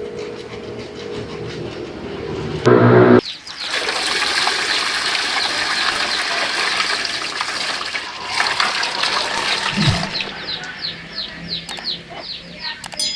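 Water running and splashing, starting about three seconds in after a short loud buzz; toward the end the flow breaks up into quick splashes.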